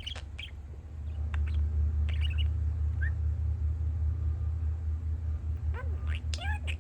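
Pet budgie chirping and warbling in short, scattered calls, a few sliding up and down in pitch near the end. Under it a low, rapidly pulsing rumble from construction machinery outside swells about a second in and stays the loudest sound.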